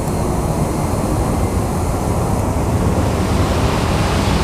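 Steady low rumble of bus engines mixed with the hiss of rain.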